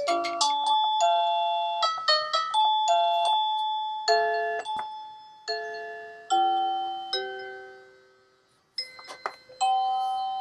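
Video doorbell indoor monitor playing electronic chime ringtones through its speaker while they are tried out one after another: short melodies of bell-like notes, each note dying away. It falls silent about eight seconds in, a few clicks follow, and another chime tune starts near the end.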